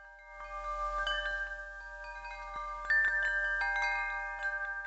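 Wind chimes ringing: many clear metal tones struck at irregular moments and ringing on over one another.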